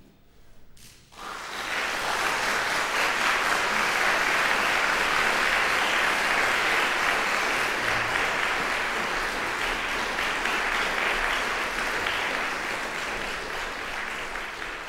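Concert audience applauding, breaking out about a second in and holding steady, easing off slightly near the end.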